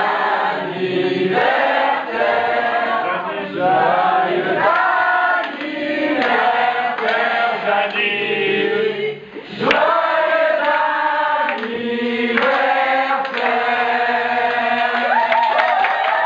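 A group of people singing together, many voices on held notes, with a brief break about nine seconds in.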